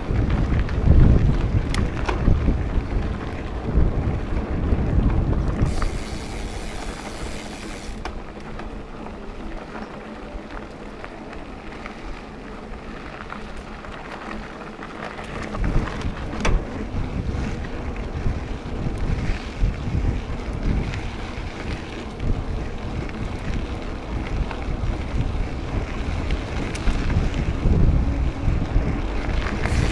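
Wind buffeting the microphone in irregular low gusts over a steady rushing noise. It eases off for several seconds about a third of the way in, then picks up again.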